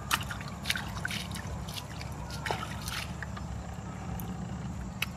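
Faint trickling and sloshing of shallow muddy water, with scattered small clicks and taps as mud and water are disturbed around a freshwater turtle, over a low steady rumble.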